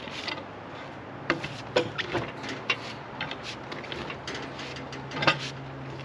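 Irregular clicks and knocks of a steel cant hook gripping and levering a log on a sawmill's log deck, over a low steady hum.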